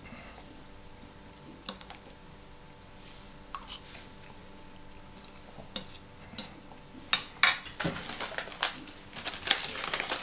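A metal fork clicks and scrapes on a ceramic plate while eating, with single sharp taps every second or two. From about seven seconds in, the clicking grows denser and a ration packet crinkles as it is handled.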